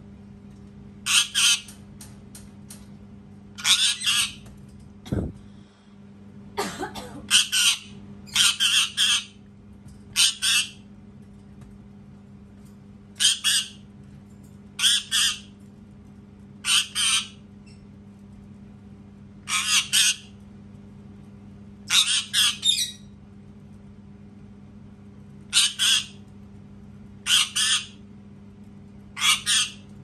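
Indian ringneck parakeet screaming: loud, harsh screeches repeated every second or two, often in quick pairs, over a steady low hum.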